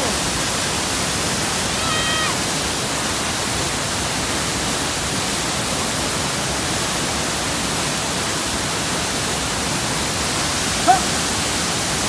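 Large waterfall in heavy flow: a steady, dense rush of falling white water.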